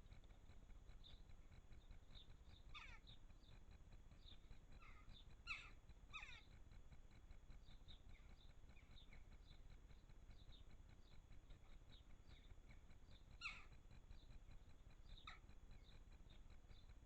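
Garden birds calling faintly: many short, high chirps about twice a second throughout, and five louder, harsher calls that drop in pitch, the loudest two about five and a half and thirteen and a half seconds in.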